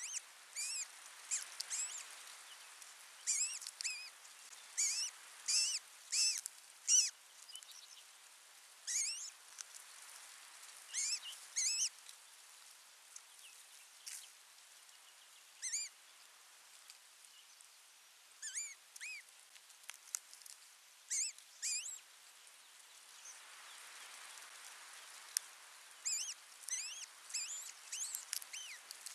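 Osprey chirping: short, high, squeaky calls, mostly in quick clusters of two to four, coming again every second or two with a few longer pauses.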